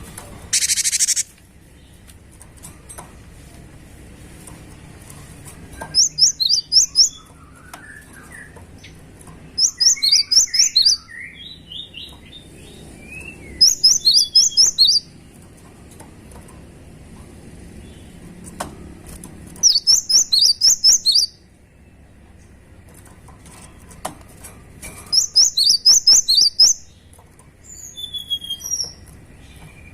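Cinereous tit singing its loud, high song in bursts of rapid repeated notes, each phrase about a second long and coming every four to six seconds. A short loud hiss sounds right at the start, and softer lower sliding notes come between phrases.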